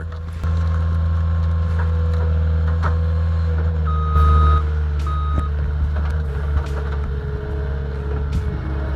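A heavy machine's engine running steadily. Two short high beeps, like a warning beeper, sound about four and five seconds in, with light knocks scattered throughout.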